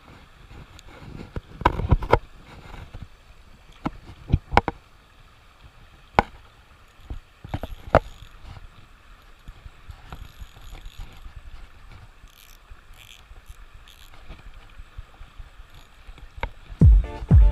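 Scattered sharp clicks and knocks from handling an ultralight spinning rod and Shimano Sahara 500 spinning reel during a lure retrieve, over a steady hiss. Music with a heavy regular beat starts near the end.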